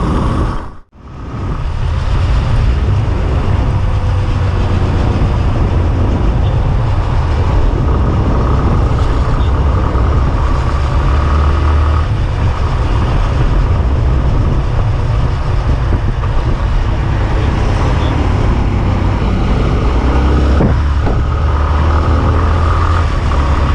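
Motorcycle engine running under way with wind rush on the microphone as the bike rides along a road, the engine pulling harder in a couple of stretches. The sound briefly drops out about a second in.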